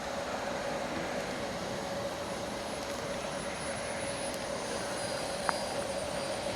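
Radio-controlled model airplane engine running steadily, a constant drone with a thin high whine above it. A short click about five and a half seconds in.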